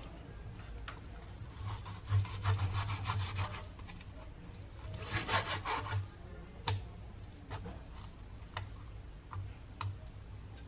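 Kitchen knife slicing raw buffalo meat on a cutting board: two runs of quick back-and-forth sawing strokes, then several single knocks of the blade on the board in the second half.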